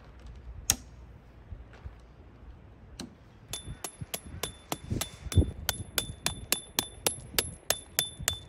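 Tent peg being driven into gravel with a peg hammer: a single knock, then from about three and a half seconds in a steady run of sharp strikes, about three a second, each ringing high.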